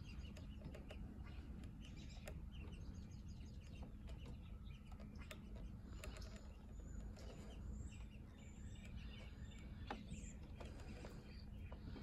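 Faint, scattered high chirps and twitters of small songbirds, with a few slurred notes about halfway through, over a steady low background rumble.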